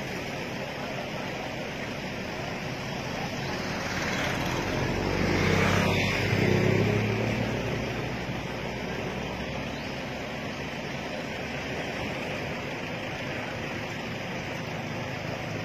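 A motor vehicle passes by, its engine and tyre noise swelling to a peak about six seconds in and then fading, over a steady background hiss of traffic and the roadside.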